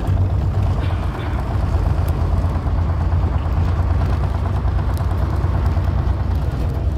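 Vintage bus under way, its engine running with a steady low drone and road noise.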